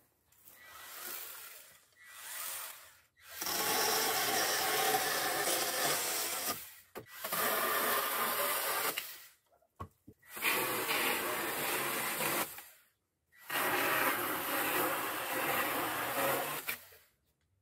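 Worx WG324E 20 V cordless pruning saw cutting through wood, its chain rasping in four long cuts with short pauses between, after two fainter short runs at the start.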